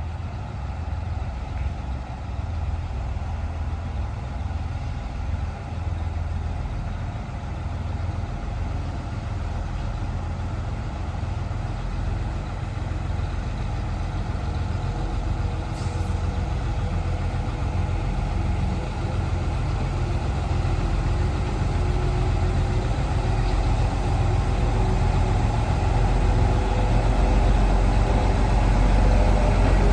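Freight train's locomotive running with a steady low rumble, growing gradually louder as the train comes closer.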